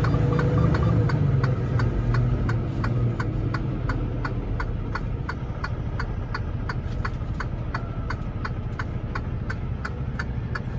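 Semi-truck's diesel engine running as the tractor creeps forward to slide the trailer tandems back. It is louder for the first three seconds and then eases off, with a steady ticking about three times a second throughout.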